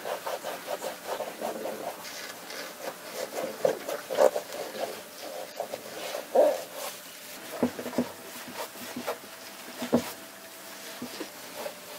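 A cloth rubbed back and forth over the rubber toe cap and sidewall of a Converse Chuck 70 sneaker, scrubbing in quick short strokes at first, then in slower, louder scuffs.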